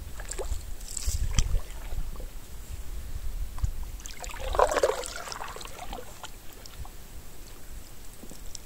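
Canoe paddling: water splashing and trickling off the paddle, with a few light knocks and one louder splash about halfway through.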